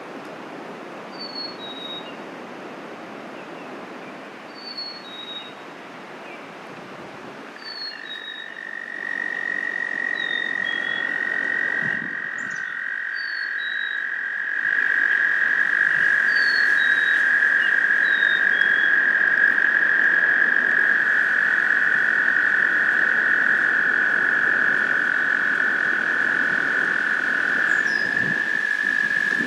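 American toads trilling: a long, steady, high trill starts about a quarter of the way in and carries on, and a second toad joins a couple of seconds later at a slightly lower pitch, stopping shortly before the end. Over the first half, a bird repeats a high two-note whistle that falls from the first note to the second.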